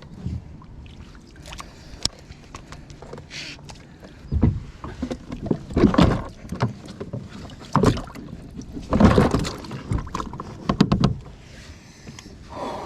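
Splashing and knocking in and against a kayak as a big bass is fought close to the boat: a run of loud, sudden splashes and thumps about four seconds in, easing off near the end.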